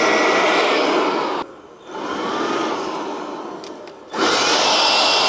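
Ryobi 18V ONE+ cordless blower running with a steady rush of air. It drops off sharply about a second and a half in, runs quieter for a couple of seconds, then comes back up to full about four seconds in.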